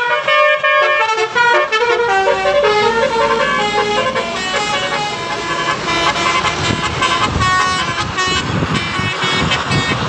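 Telolet Basuri musical bus horn playing a quick tune of stepped notes. From about six seconds in, the rumble of a heavy vehicle passing close by joins it.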